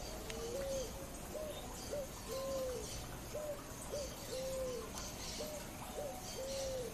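Picazuro pigeon (asa-branca) singing: a steady rhythm of low coos, with one drawn-out coo after every two short ones, four long coos and six short ones in all.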